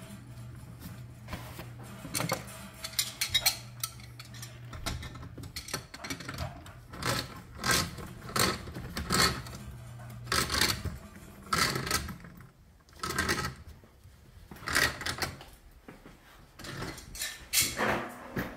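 Metal tools and fittings clinking and clanking as they are handled, in irregular sharp knocks with a brief ring, over a low steady hum in the background for part of the time.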